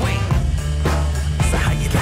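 Background music with a steady beat: drum hits about twice a second over a held bass line.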